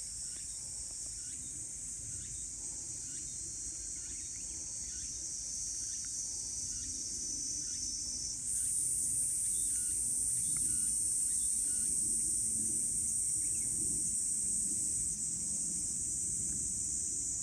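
A steady, high-pitched chorus of insects. About halfway through it grows suddenly louder and higher, then eases slightly near the end.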